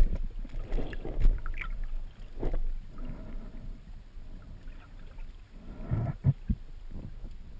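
Water sloshing and splashing in irregular surges, with a few low knocks about six seconds in.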